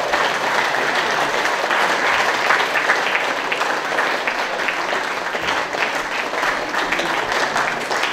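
Audience applauding steadily, many hands clapping at once, easing off slightly near the end.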